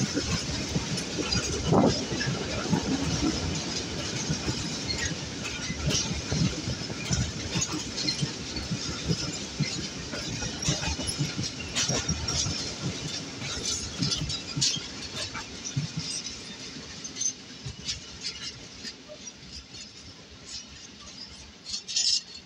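Freight train of covered hopper wagons passing close by, the wheels rumbling and clattering over the rail joints. The sound fades through the second half as the last wagons go by and the train moves off.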